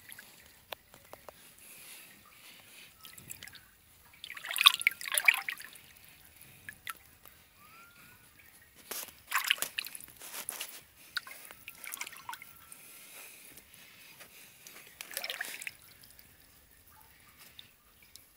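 A hand splashing and sloshing in shallow spring water, with dripping, in three short bursts: about four seconds in, near the middle, and near the end.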